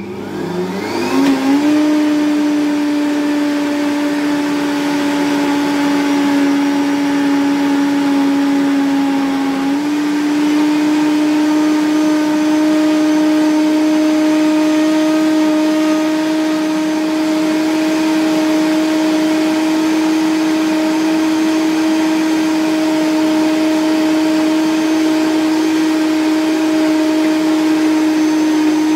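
Vitamix blender motor spinning up over about a second, then running steady at high speed, blending soaked sea moss and water into a gel; its pitch steps up slightly about ten seconds in.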